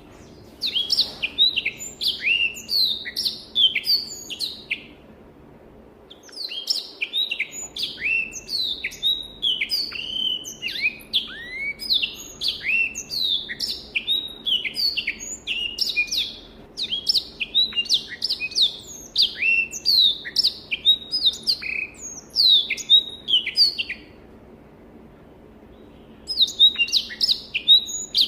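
Black-throated canary (Crithagra atrogularis) singing in three bouts of rapid, clear, sweeping high notes, with two short pauses, about five seconds in and near the end, over a faint steady hum.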